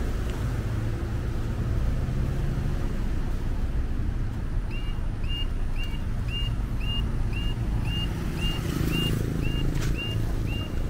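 Steady rumble of road traffic. About halfway through, a high electronic beep starts repeating quickly, about three short beeps a second.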